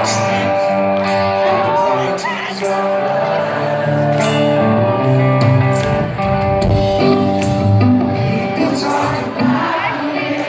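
Live rock band playing, with guitar, sustained pitched notes and a steady drum beat.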